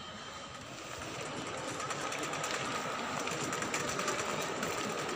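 Red plastic shopping cart rattling as it is pushed, its wheels clattering steadily over the floor and growing louder about a second in.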